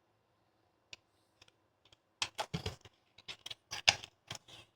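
Light clicks and taps of a pitch gauge being set into a bowling ball's thumb hole and adjusted to read the pitch: a few faint clicks, then a quick run of sharp taps from about halfway.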